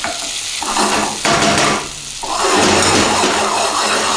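Tofu omelette mixture sizzling in a non-stick frying pan, with a spoon pressing and scraping through it over the first couple of seconds. From about two seconds in it settles into a steady frying sizzle.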